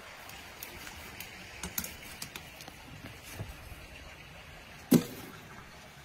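Watermelons being handled and cut: scattered light clicks and taps, and one sharp thump about five seconds in.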